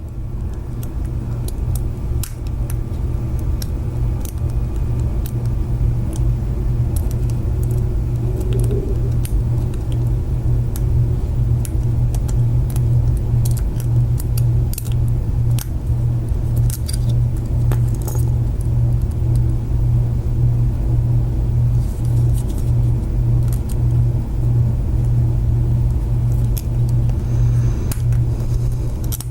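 Small, scattered metal clicks and scrapes of a tiny hook pick and tension tool working the pins of a small padlock. A steady low hum, the loudest sound, runs underneath.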